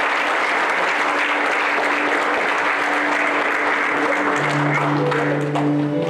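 Congregation applauding, dying away about five seconds in, over soft music of long held notes, with a lower note coming in near the end.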